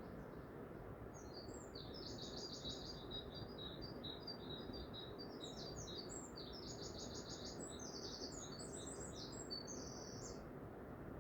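A songbird singing two long phrases of rapid, high trilled notes, the second starting about five seconds in, over a steady low background noise.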